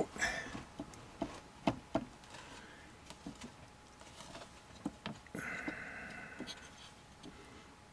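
Scattered faint clicks and taps of fingers handling components and test-lead clips on a circuit board, with a brief faint higher-pitched sound about a second long beginning about five and a half seconds in.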